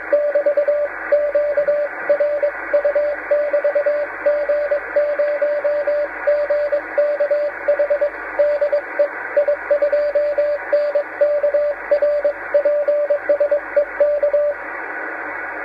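Morse code (CW) signal received on the 10-metre amateur band: a single steady tone keyed on and off in dots and dashes over receiver hiss. The keying stops near the end, leaving only the hiss.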